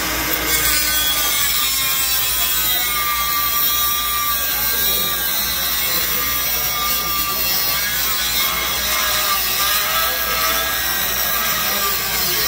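DeWalt 20V cordless 3-inch cutoff tool's abrasive wheel grinding through steel bar under load. It makes a continuous harsh grinding with a high whine whose pitch wavers slightly as the cut goes on.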